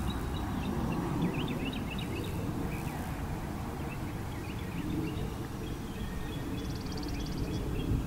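Open-air ambience: a low rumbling wind noise on the microphone, with small birds chirping throughout and a short rapid buzzing trill about seven seconds in.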